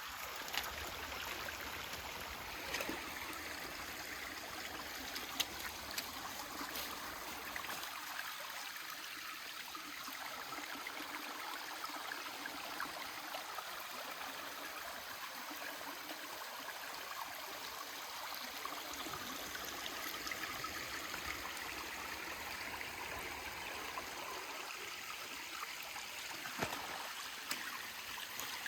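Small mountain stream running steadily, with a few light clicks over it.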